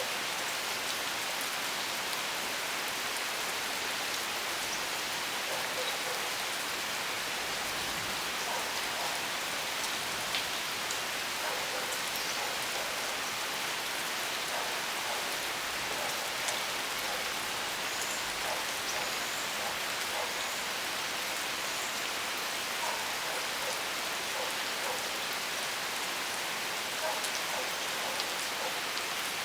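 Steady rain falling, with scattered individual drops and drips standing out against the even patter.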